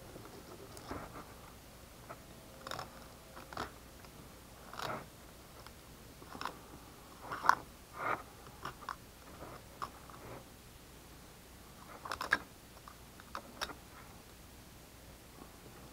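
Fillet knife cutting and scraping along a sunfish's rib cage and through its scaled skin on a plastic fish-cleaning board: short scrapes and cuts at irregular intervals, the loudest about seven and a half seconds in and again about twelve seconds in.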